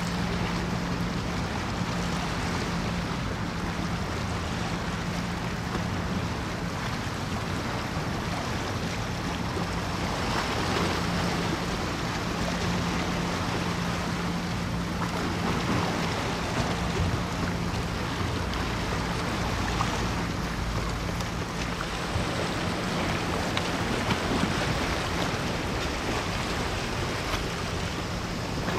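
Steady low hum of a large cruise ship's machinery passing close by, over a constant wash of water and wind.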